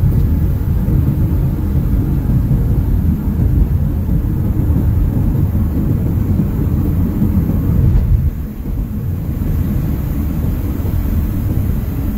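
Steady low rumble of a car driving at road speed, heard from inside the cabin: tyre and engine noise, easing slightly about eight seconds in.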